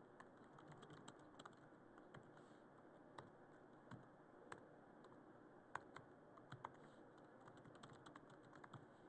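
Faint typing on a computer keyboard: scattered, irregular key clicks, with a quicker run of keystrokes near the end.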